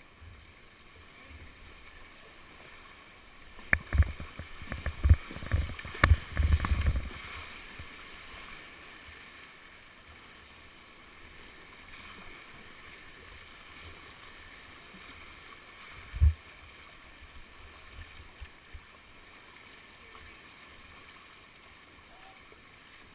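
Whitewater rapids rushing steadily past a kayak, with a burst of loud thumps and splashes about four to seven seconds in and one more thump about sixteen seconds in.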